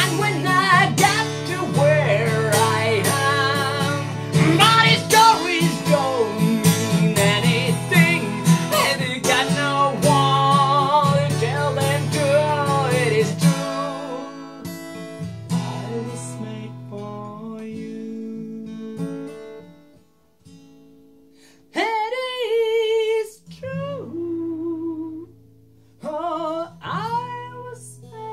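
A man singing over his own strummed acoustic guitar, full and loud at first. About halfway through the strumming drops to quieter, sparse guitar notes, with a few short sung phrases near the end.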